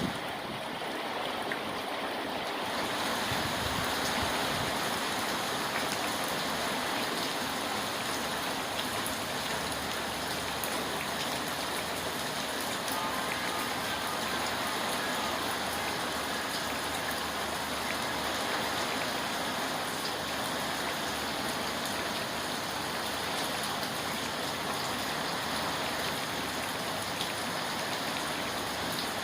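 Rain falling steadily: an even, unbroken hiss of rain.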